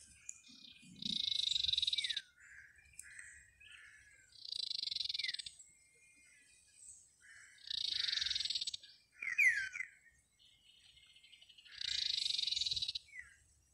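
A repeated buzzing, pulsing trill from a calling animal, about a second long, four times roughly every three and a half to four seconds. A few short falling bird whistles come between the trills.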